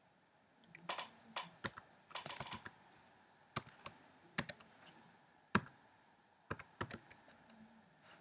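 Typing on a computer keyboard: sharp keystrokes in short quick runs, with single key presses and pauses between them.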